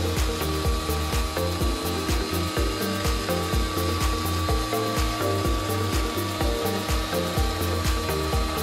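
Carbide 3D router spindle on a Shapeoko XXL CNC running with a steady whine as it cuts a perimeter through quarter-inch PVC sheet. Background music with a steady beat plays over it.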